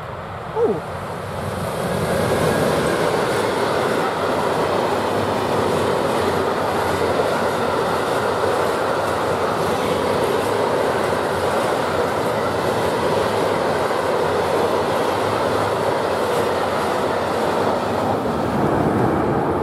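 Freight train of covered hopper wagons passing close by, a loud, steady running noise of wheels on rails that builds over the first two seconds and holds to the end. A brief sharp sound comes just before the train arrives.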